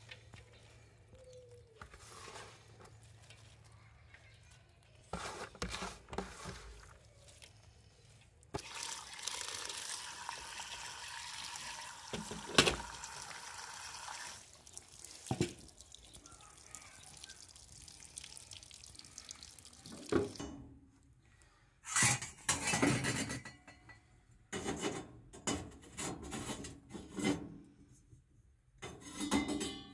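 Water running from a tap into a metal bowl of chopped greens as they are rinsed, a steady splashing for about six seconds about a third of the way in. Short handling knocks come before it, and a run of sharp clatters and knocks follows in the last third.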